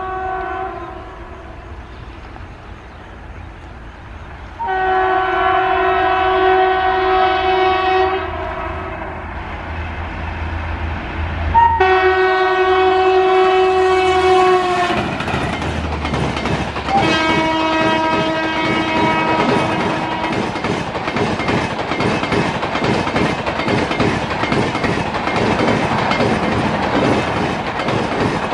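An electric locomotive's multi-tone air horn sounds in three long blasts of a few seconds each, the last one lower in pitch as the locomotive goes by. Then the rumble and rapid clickety-clack of LHB passenger coaches running past at speed take over.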